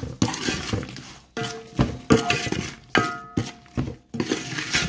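Spatula scraping and knocking against a metal pan while oily, spice-coated gooseberry pieces are stirred, with several sharp clinks that leave the pan ringing briefly.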